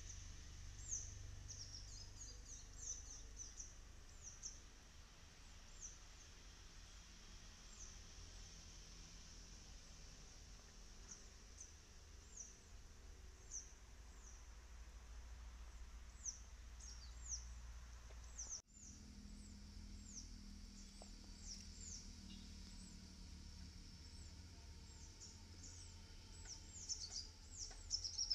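Faint outdoor ambience of small birds chirping in the background: many short, high-pitched falling chirps, scattered at first and coming thick and fast near the end, over a low rumble.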